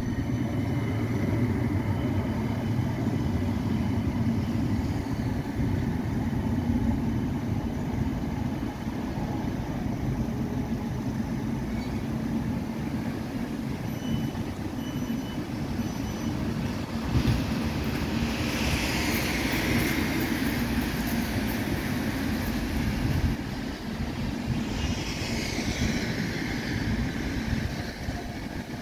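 Midland Metro CAF Urbos tram pulling into a stop and standing there, with a steady low rumble and hum from the tram. Two short hisses come about two-thirds of the way through and again near the end.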